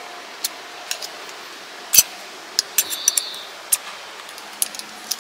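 Scattered light clicks and taps of a pair of portable chopsticks being handled, the sharpest click about two seconds in.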